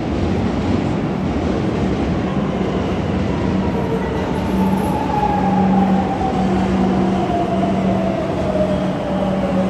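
Madrid Metro electric train pulling into an underground station as it slows. Its motor whine falls steadily in pitch over the rumble of the wheels and a steady low hum.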